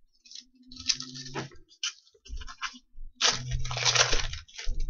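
Crinkling and rustling of trading-card packs and cards being handled, in irregular bursts, the busiest and loudest stretch in the second half.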